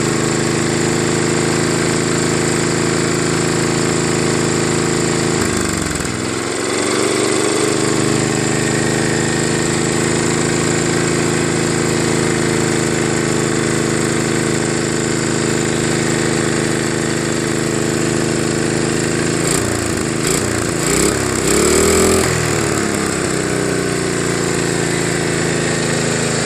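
5 hp Tecumseh horizontal-shaft snowblower engine running smoothly at full throttle on its newly fitted replacement carburetor. About five seconds in its speed dips briefly and recovers, and around twenty seconds in it wavers up and down for a couple of seconds with a few clicks before settling again.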